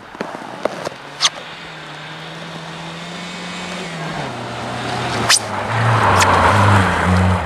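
Volkswagen Golf Mk2 rally car's engine running hard as the car approaches on a snow stage; the note drops about four seconds in, then gets louder as the car slides past close by, tyres throwing snow. A few sharp cracks are heard along the way.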